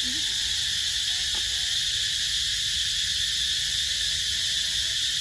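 Steady, unbroken chorus of insects, a high buzzing hiss that stays level throughout.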